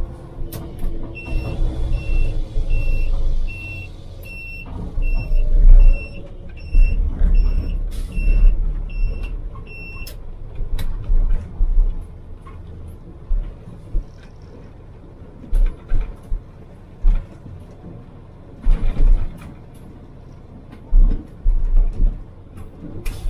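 Concrete pump truck running, heard from inside its cab as it rolls slowly onto a gravel lot. A high electronic beep repeats about twice a second for the first ten seconds, then stops. Heavy low thumps and rattles come as the truck bounces over the rough ground.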